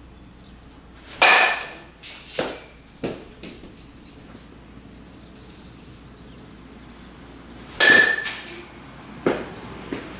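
Metal baseball bat striking a ball twice, about six and a half seconds apart, each hit a sharp ringing ping. Each hit is followed by a couple of softer knocks.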